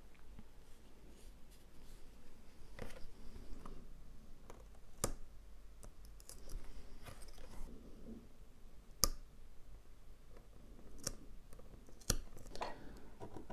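Precision craft knife scratching and picking at the silver-lined milk carton plate, cutting away the carton's silver layer so those areas print dark. A few sharp clicks come through, the loudest about nine seconds in.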